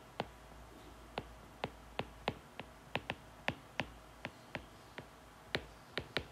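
A stylus tip tapping and clicking on a tablet's glass screen while writing by hand. The clicks are sharp and irregular, two or three a second, with a short pause about five seconds in.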